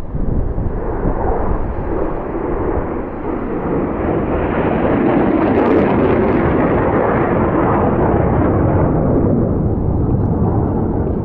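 Aircraft flying over, a rumbling roar that swells to its loudest around the middle and begins to fade near the end.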